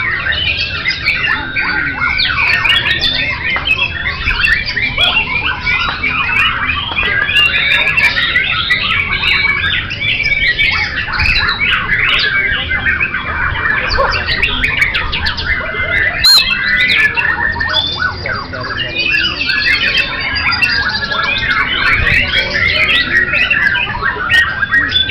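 Many caged songbirds singing at once: a dense, unbroken mix of quick chirps and whistles.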